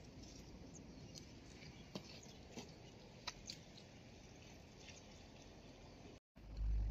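Faint steady outdoor hiss with a few small scattered clicks and ticks. Near the end the sound cuts out for a moment, then a low rumble comes in on the microphone.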